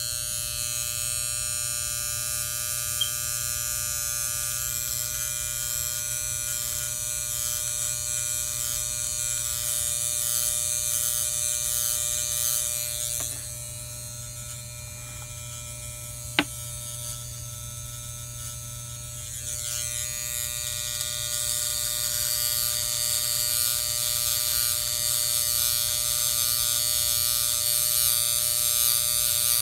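Electric hair clippers running with a steady buzz while cutting hair close to the head. The buzz drops quieter for several seconds in the middle, and there is one sharp click about halfway through.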